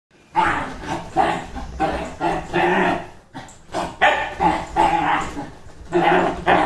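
Dachshund barking excitedly in quick, repeated barks, about two or three a second, with a short break about three seconds in.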